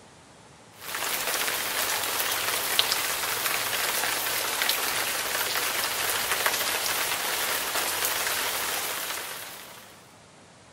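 Dense patter of falling water, like rain on a surface: a steady hiss with scattered sharp drop ticks. It starts abruptly about a second in and fades out near the end.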